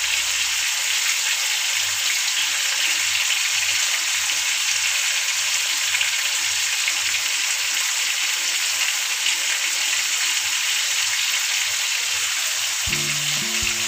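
Marinated chicken pieces sizzling steadily in hot oil in a nonstick kadai on high heat, an even frying hiss.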